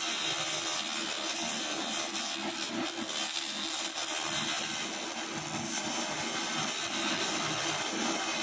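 200 W pulsed flat-top fiber laser cleaner ablating the dark coating from a wooden board: a steady, even hiss, with a faint steady hum underneath.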